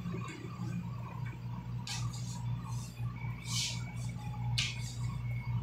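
Room tone with a steady low hum, broken by three brief soft rustles about two, three and a half, and four and a half seconds in.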